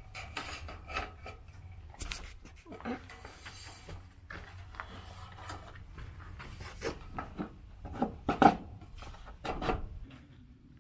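Sheet-metal trim being handled and fitted into place: irregular scraping, rubbing and light knocks of metal against metal and siding, with the sharpest knocks about eight seconds in.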